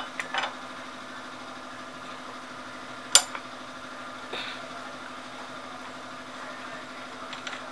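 A wrench working on a motorcycle's front axle fittings: a few light clicks, one sharp click about three seconds in, and a softer one a second later. A steady low hum runs underneath.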